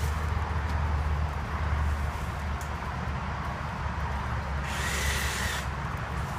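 Engine running steadily with a low rumble, with a short hiss about five seconds in.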